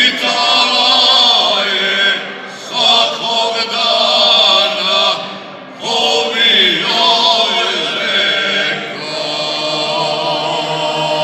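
Male folk group singing unaccompanied in the traditional izvorna style: a lead voice over the other men's voices, holding long notes in phrases that break off briefly about three times.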